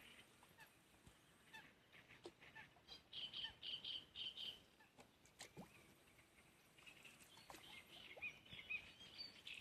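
Faint birds calling and chirping: scattered short high chirps, with a run of quick repeated chirps about three seconds in and again near the end.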